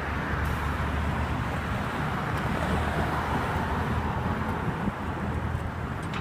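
Steady outdoor street noise on a phone microphone: a low wind rumble with a hiss like distant traffic, unchanging throughout.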